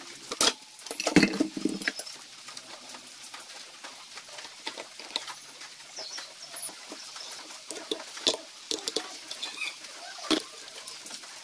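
Metal engine parts being handled during a teardown: a side cover, a gear and steel bolts clink and knock against each other and the bench. There is a loud cluster of knocks about a second in, and scattered single clicks after it.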